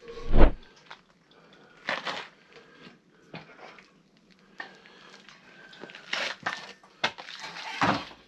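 Irregular knocks, clicks and short scraping or hissing bursts of objects being handled, with a heavy thump right at the start.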